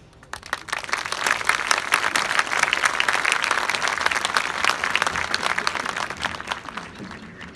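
Audience applauding in the stands between sections of a marching band show. The clapping builds within about a second and tapers off near the end.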